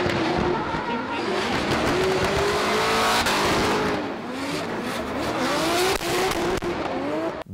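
Drift car sliding sideways, its engine revving up and down over continuous tyre squeal and skid noise.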